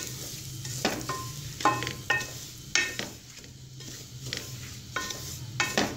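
Wooden spoon stirring semolina in hot oil in an aluminium pot, with a faint sizzle as the semolina starts to roast. The spoon knocks against the pot about six times, several knocks leaving a short metallic ring.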